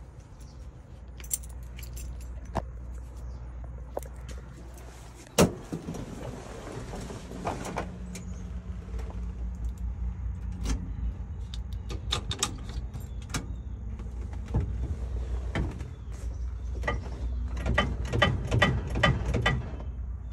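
Keys jangling on the ignition key ring, with scattered clicks and knocks as the 1937 Plymouth's ignition key is worked and the floor starter pedal pressed, and a run of quick clicks near the end; the engine does not crank, which the owner takes for a dead 6-volt battery. A steady low hum runs underneath.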